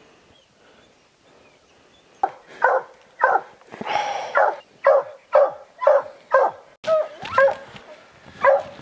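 A hunting hound barking steadily at a treed bobcat, a tree bark. It starts about two seconds in and repeats about twice a second, with one longer, rougher bawl in the middle.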